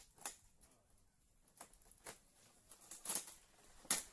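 Scattered knocks and scrapes on a fibreglass boat hull as it is worked loose from its mould by hand, a few sharp ones coming irregularly, loudest a little after three seconds and near the end.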